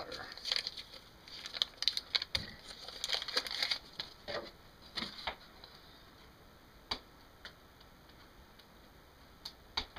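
Paper butter wrapper crinkling and rustling as a stick of butter is peeled over a stainless steel saucepan, with a dull thump about two and a half seconds in as it drops into the pan. After that only a few light, scattered clicks and taps.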